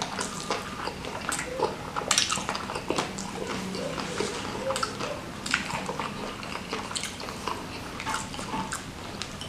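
Close-up mouth sounds of eating ayam geprek, smashed fried chicken in sambal: wet chewing and smacking with many sharp, irregular clicks.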